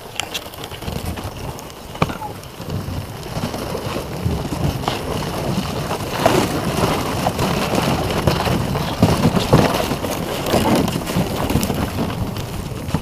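Wooden reindeer sled scraping and rattling over snow and rock as reindeer pull it, with occasional sharp knocks and wind buffeting the microphone. The scraping grows louder from about halfway through.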